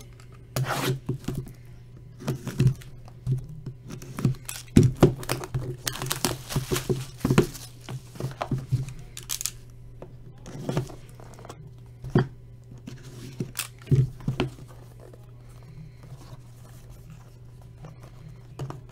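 Plastic shrink wrap on a cardboard trading-card box being slit with a box cutter and torn off: a run of short tearing, scraping and crinkling sounds that dies away about three-quarters of the way through, over a steady low hum.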